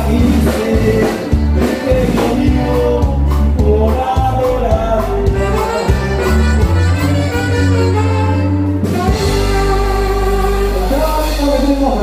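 Norteño band playing live dance music with singing, over a steady bass line and drum beat; the drum hits drop out about nine seconds in, leaving held notes.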